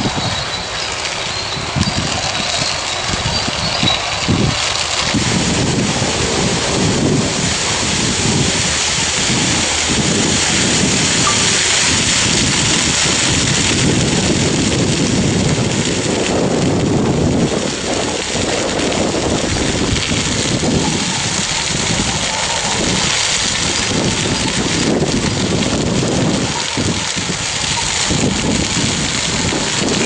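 Strong wind buffeting the microphone in irregular gusts, over the dense steady hiss of a wildfire burning through dry field vegetation.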